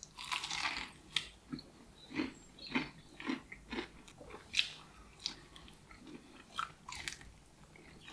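A person biting into a crispy KFC hot wing and chewing it, the breaded fried-chicken coating crunching. One louder bite near the start, then irregular crunchy chews, about one or two a second.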